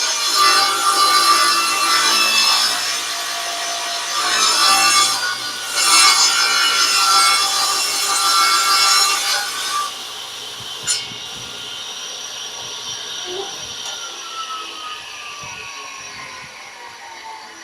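Table saw ripping a full sheet of plywood, the blade cutting steadily for about ten seconds. Then the cut ends, a click follows, and the saw keeps running more quietly, its tone falling in pitch near the end.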